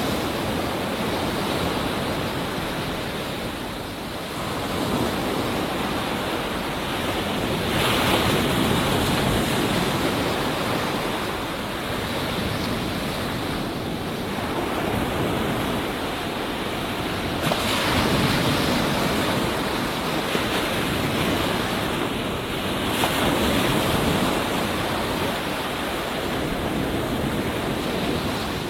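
Ocean surf: waves breaking and washing onto a beach in a continuous rush of white water, swelling louder every few seconds as each wave comes in.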